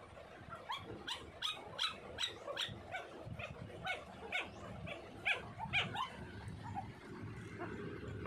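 Eleven-day-old golden retriever puppies crying: a run of short, high-pitched yelping whines, about two a second, that stops about six seconds in.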